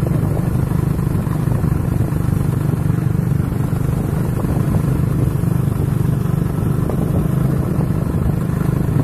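Motorcycle engine running at a steady speed while riding, a constant low drone with road and wind noise over it.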